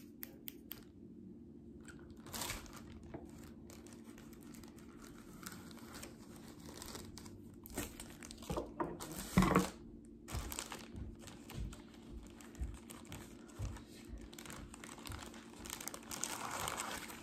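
Plastic piping bags and their plastic wrapping crinkling and rustling as they are handled and opened, with scattered light clicks and a louder rustle about halfway through.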